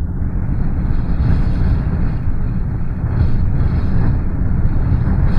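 Strong hurricane wind: a dense, low rushing noise with gusts that swell and ease, growing stronger near the end.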